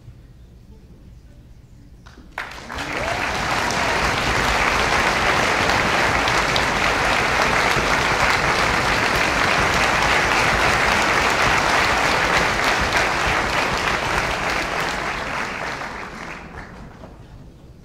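Audience applauding: it starts abruptly about two seconds in, quickly swells to a steady, dense clapping, and dies away near the end.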